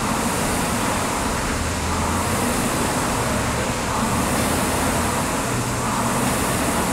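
Air rowing machine's fan flywheel whirring under hard rowing, swelling with each stroke about every two seconds.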